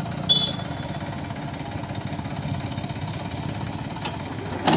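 Massey Ferguson 7250 tractor's three-cylinder diesel engine idling steadily, with a brief click just after the start and a sharp knock near the end.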